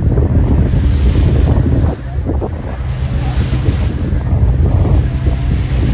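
Wind buffeting the microphone over the steady low hum of a boat's engine and the wash of sea water.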